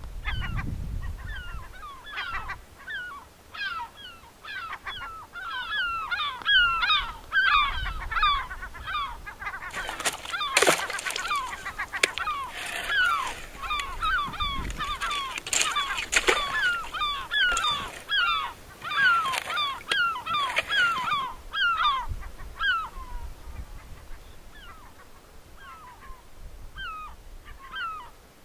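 A dense chorus of sea ducks calling out on the open sea, with many short, falling, honking calls overlapping and thinning out near the end. From about ten seconds in, for roughly ten seconds, the crunching scrapes of a ski and pole on the ice come through as well.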